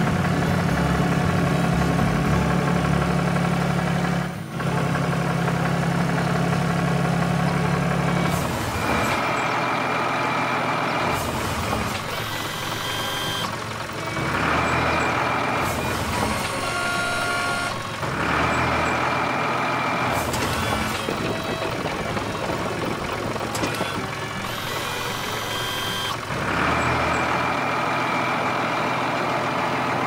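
Cartoon vehicle sound effects: a tractor engine running with a steady low hum for about eight seconds. Then a forklift working, with higher-pitched tones that come and go every few seconds.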